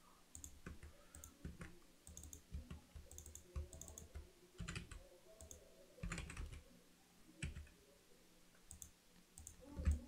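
Faint, irregular clicks of a computer mouse and keyboard, a few of them with a soft thump.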